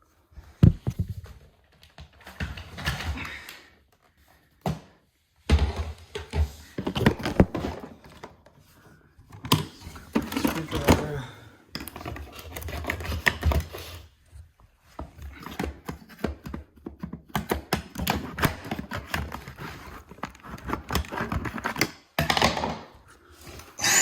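A screwdriver poking and scraping at a blockage in a Dyson V6 cordless vacuum: irregular clicks, knocks and scraping of metal on plastic.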